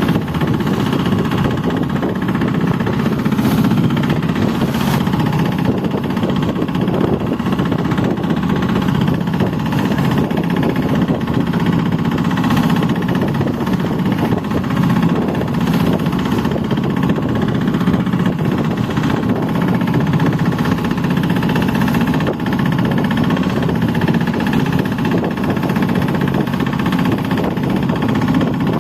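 A boat engine running steadily at constant speed, heard close up on board.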